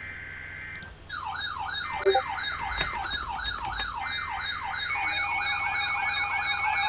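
Emergency Alert System broadcast: the SAME digital header plays as three short bursts of buzzing two-tone data, and about five seconds in the steady EAS attention tone starts. From about a second in, an electronic siren tone wails up and down over it, about two and a half sweeps a second, growing louder.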